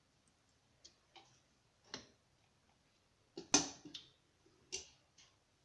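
A few faint, scattered knocks and clinks from handling an aluminium cooking pot and utensils, with the loudest cluster about three and a half seconds in.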